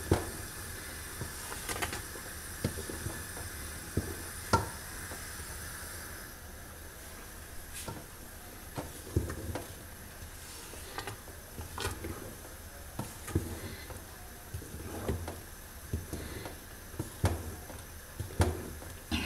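Wooden spoon stirring a thick sesame and hazelnut paste in an aluminium pot, with irregular soft knocks and scrapes against the pot a few times a second over a faint hiss.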